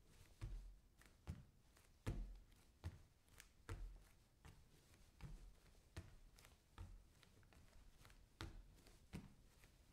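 Bare feet walking on a wooden floor: slow, even steps, each a soft low thud with a light tap on top, a little more than one step a second.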